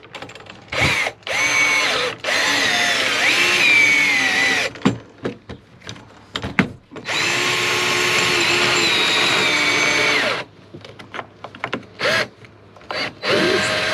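Power drill running in several bursts, driving in a mounting bolt for a rooftop air conditioner's interior bracket; its whine rises and falls as the trigger and load change. The two longest runs last a few seconds each, with short knocks and clicks of the bolt and bracket between them.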